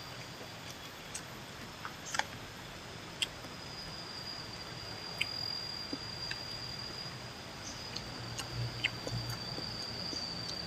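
An insect trilling steadily at one high pitch, with scattered small sharp clicks from eating by hand.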